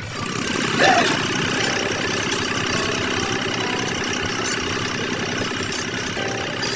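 An engine running steadily at idle, with a brief louder burst about a second in.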